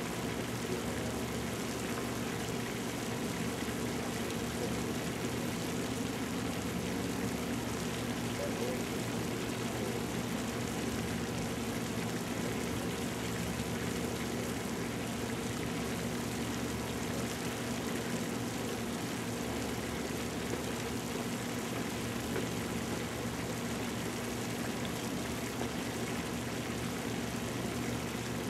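Steady drone of heavy earthmoving machinery's diesel engines working in a rock quarry, a constant low hum under an even hiss.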